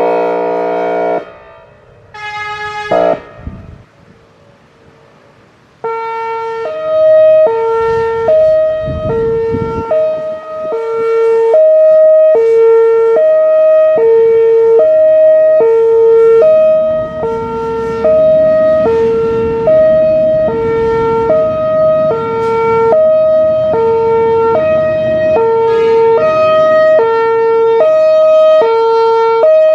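Whelen Vortex R4 electronic outdoor warning siren: a short buzzy airhorn blast that cuts off about a second in, a second brief blast near three seconds, then from about six seconds the hi-lo signal, two tones alternating back and forth about every three-quarters of a second.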